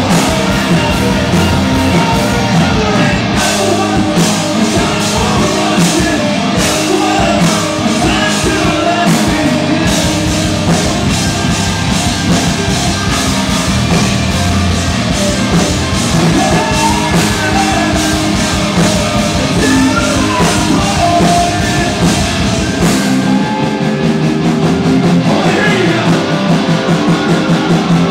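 Live hard rock band playing loud through a stage PA: distorted electric guitars, drum kit and sung vocals. The deep low end drops away for the last few seconds.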